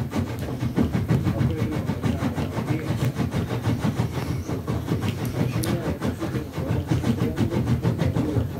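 A schnauzer growling continuously in a low, rough rumble while pawing and digging at a fabric throw, the scratching of the cloth running through the growl.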